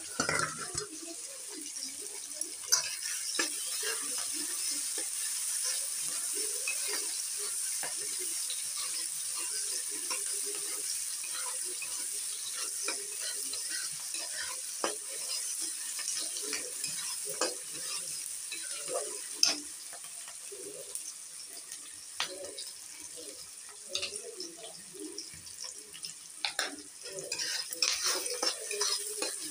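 Chopped onions sizzling in hot oil in a frying pan, a steady hiss with scattered crackling pops. Near the end a wooden spatula stirs them, adding quick scraping clicks against the pan.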